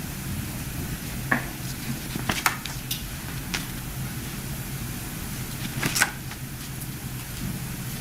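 Courtroom room tone picked up by the court microphones: a steady low hum with a handful of short clicks and knocks, the loudest about six seconds in.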